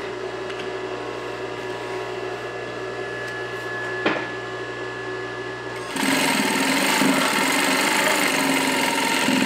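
Juki DDL-5550 single-needle industrial lockstitch sewing machine on a clutch motor. The motor hums steadily while the machine stands still, with a single click about four seconds in. About six seconds in, the machine starts sewing through layered denim at full speed, loud and fast, and keeps going to the end.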